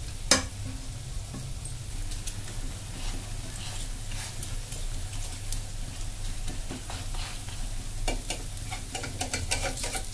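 Batter pancake sizzling gently on an oiled non-stick pan over a steady low hum, with one sharp tap just after the start. Near the end a steel spatula scrapes and taps repeatedly against the pan.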